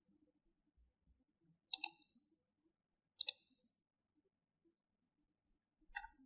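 Computer mouse button clicking twice, about a second and a half apart, each a quick double tick of press and release, with a few fainter clicks near the end.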